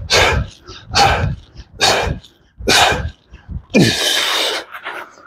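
A man breathing hard while doing push-ups: sharp, noisy exhales about once a second, then a longer breath that drops into a falling grunt near the end as he gets up off the floor.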